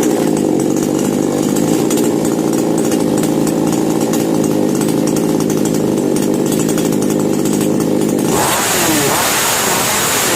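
A repaired two-stroke petrol chainsaw engine running steadily just after starting, then revving up about eight seconds in. It runs properly.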